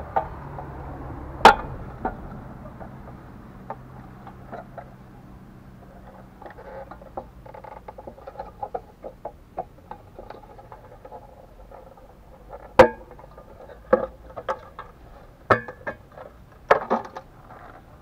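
Plastic clicks and knocks of a Tofaş Doğan SL headlamp's chrome reflector being worked into its plastic housing, its mounting feet snapping into their seats. Scattered sharp clicks, one loud one about a second and a half in and a cluster near the end.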